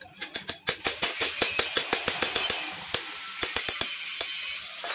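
A quick, irregular run of sharp metallic clicks and scrapes as a pointed hand tool works at the centre of a round steel plate from a 100cc motorcycle engine.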